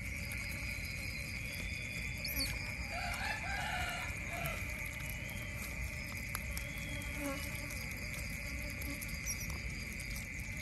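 A rooster crows once, about two to four seconds in, over a steady high-pitched insect drone.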